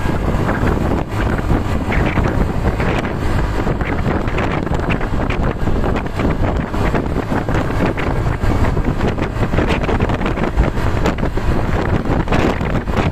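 Wind buffeting the microphone over the steady rumble of road traffic.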